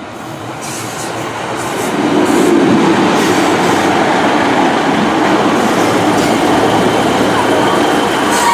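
Class 150 diesel multiple unit 150131 running into the station, its rumble building over the first two seconds and then holding steady.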